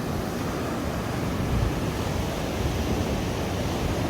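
Heavy surf from a rough, storm-driven sea: huge waves breaking in a steady rush of water with a deep rumble underneath.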